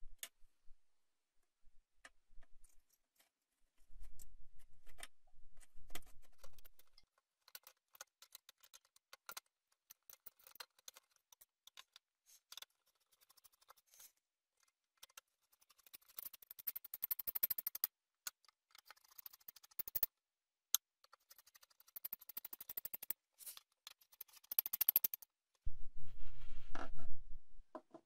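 Screwdriver turning the heatsink screws down on a PC motherboard: scattered small clicks and scrapes, with a long run of rapid ticking through the second half. Two short spells of low rumble, a few seconds in and near the end.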